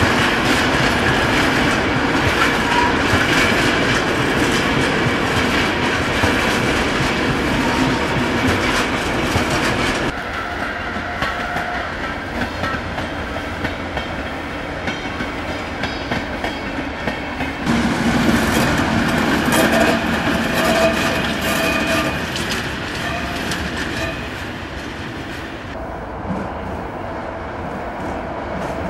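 Trains rolling at low speed through a large station, wheels clattering over rail joints and points. The sound changes abruptly a few times, about a third of the way in, after about 18 seconds and near the end.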